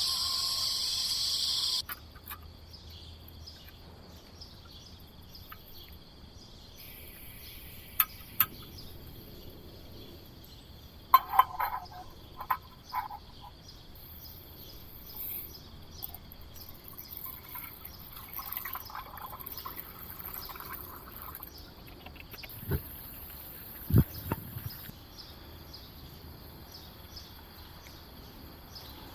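Forest-edge ambience: a steady high chorus of calling insects and frogs, louder for the first couple of seconds and then quieter after a sudden cut. Scattered sharp clicks and knocks sound through it, with two low thumps near the end.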